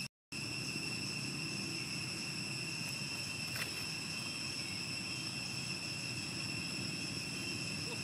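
Insects droning steadily in a single high, unbroken whine with overtones, over a low steady background noise. The sound cuts out for a moment just after the start.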